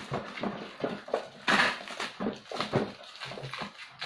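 Cardboard box and its packing being handled: a run of irregular knocks, scrapes and rustles, the loudest a rustle about a second and a half in.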